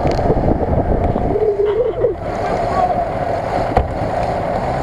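Off-road 4x4 engines running steadily, with a short voice about a second and a half in.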